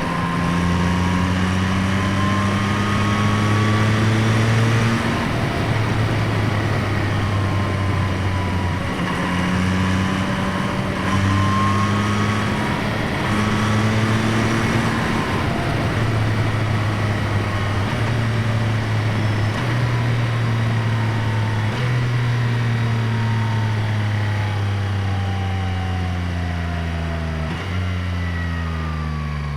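2025 Yamaha MT-09's 890 cc inline-three engine running under load, heard through microphones on the airbox and at the exhaust as intake and exhaust sound together. The pitch climbs in stretches of a few seconds, each broken by a short drop and picking up again lower, as it would through gear changes, then falls away steadily over the last few seconds.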